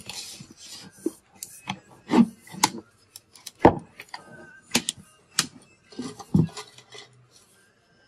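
Irregular sharp clicks and knocks as the laptop's bottom cover is pressed and snapped into place along its edges and the laptop is handled on the desk, the loudest knock a little over halfway through.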